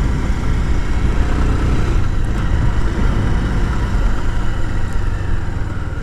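Motorcycle running while being ridden, heard as a steady low rumble.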